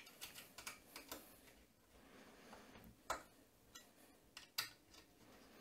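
Faint clicks of a 2.5 mm hex driver turning and seating screws in a carbon-fibre camera mount, with a sharper click about three seconds in and another near the end.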